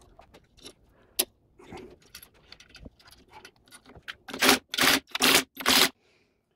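Light metal clicks and scrapes as steel washers and nuts are fitted by hand onto the jig's studs, then a cordless brushless impact driver runs in four short bursts from about four seconds in, tightening the nuts down onto the steel plates.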